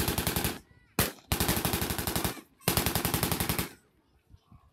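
Machine gun firing blanks in rapid bursts, about ten shots a second: a burst ends about half a second in, a single shot follows, then two bursts of about a second each.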